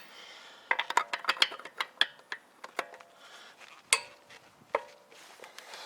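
Steel lug wrench clinking and knocking against the wheel's lug nuts as it is fitted on and worked to break them loose: a quick run of sharp metallic clicks early on, then a few single ringing knocks about four and five seconds in.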